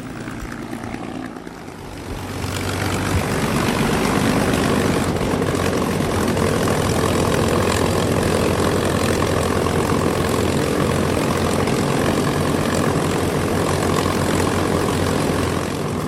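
P-51 Mustang's V-12 piston engine and propeller running. The sound is quieter for about the first two seconds, then swells and stays loud and steady.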